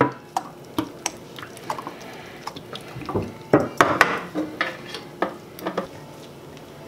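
Olive oil poured from a tin over raw mussels in a stainless steel pot: irregular splashes, drips and light clicks on the shells, stopping about six seconds in.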